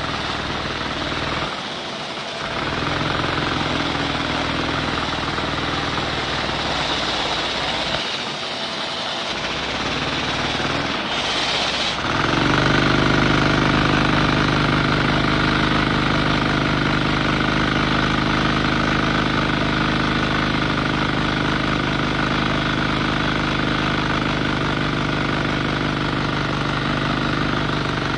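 Motorized LEGO engine model running with a steady mechanical hum. It falters briefly twice early on, then about twelve seconds in it gets louder and settles into a steadier, clearer drone.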